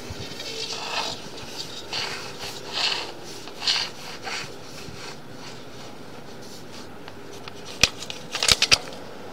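Sewer inspection camera being pushed down a sewer pipe: short rubbing and scraping noises, then a quick run of sharp clicks near the end.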